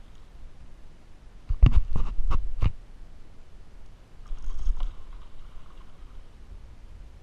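Four or five sharp knocks in quick succession on a kayak, the loudest sound here. Later comes a brief whir from a spinning reel being cranked, over low water noise against the hull.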